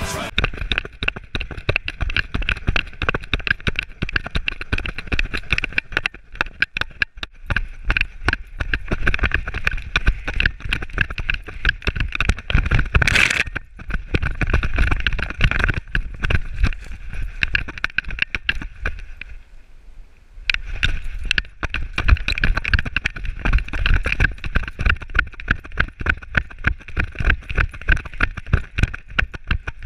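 Raw audio from an action camera strapped to a galloping dog's back. The dog's running stride jolts the camera mount in a fast, irregular train of knocks, over a steady rush of wind. There is one sharper loud knock about thirteen seconds in, and a short quieter spell around twenty seconds in before the pounding picks up again.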